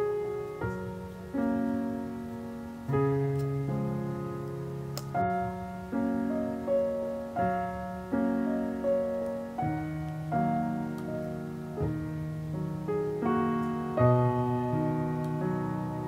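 Background piano music: chords struck about once a second and left to ring and fade.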